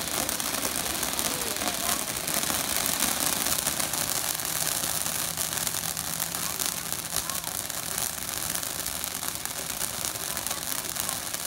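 Ground fountain firework spraying sparks: a steady hiss with dense fine crackling throughout.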